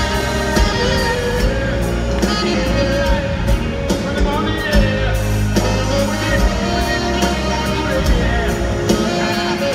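Live band music played loud through an arena PA, heard from among the audience: drums and bass under a wavering melodic lead line, with some voices mixed in.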